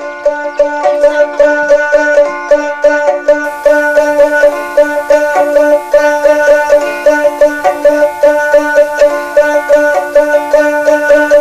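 Instrumental background music: a rapidly plucked string instrument playing a quick melody over a steady held drone.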